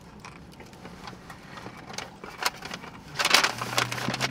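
Close-up chewing and handling of a paper-wrapped sub sandwich: soft wet clicks at first, then a loud crackling rustle about three seconds in.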